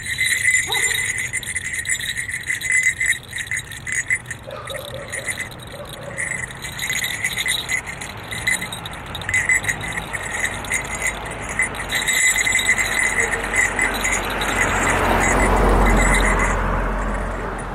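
Small metal jingle bells on a jester mask's horns jingling in short, irregular shakes as the wearer moves. About three quarters of the way through, a broad rush of noise with a low rumble swells and fades.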